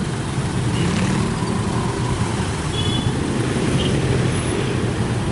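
Steady low engine rumble and traffic noise from slow, jammed road traffic of cars, trucks and motorcycles beside the railway. A few faint short high tones sound around the middle.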